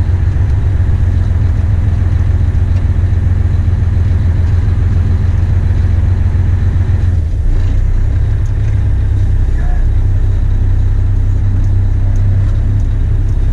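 Heavy truck's diesel engine running under load as it drives, heard from inside the cab as a steady low rumble. About halfway through, its note changes.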